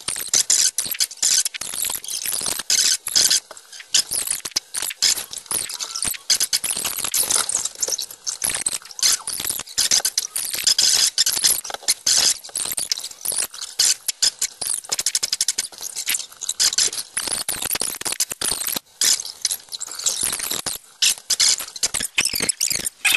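Stylus scratching across a graphics tablet in quick, short strokes: a dry, high-pitched scratching that starts and stops every fraction of a second, with clicks in between.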